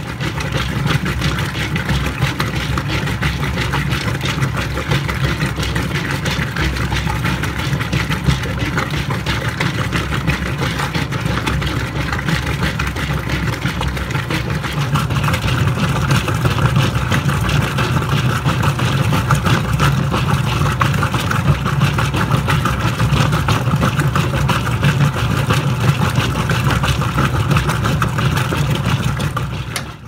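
Mid-1990s Whirlpool 7LSR8244FQ1 top-load washer agitating: a steady hum from the motor and transmission, with water and clothes churning around the agitator. About halfway through, the sound becomes brighter and a little louder.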